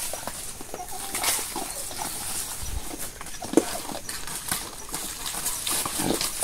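Farm livestock calling now and then, with short sounds about halfway through and again near the end, over a steady high-pitched outdoor background.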